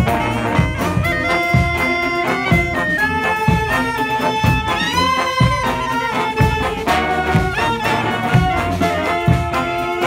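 Large brass street band playing live: saxophones, trombones and trumpets holding and shifting chords over a steady low beat of about two strokes a second.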